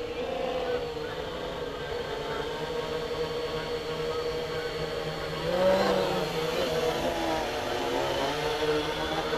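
Electric quadcopter motors and propellers buzzing in flight, their pitch wavering up and down with throttle corrections. The sound grows louder a little over halfway through as the craft comes close overhead.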